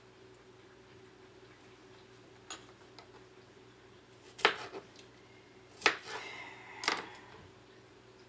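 Kitchen knife slicing a cucumber on a plastic cutting board: a couple of faint taps, then three sharp knocks in the second half, one with a short ring after it.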